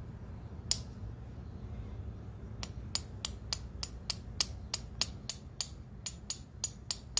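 Sharp, light taps of a new iridium spark plug's electrode end against a hard surface, gently knocking the ground electrode in to close the gap. One tap about a second in, then a steady run of taps about three a second from near the three-second mark.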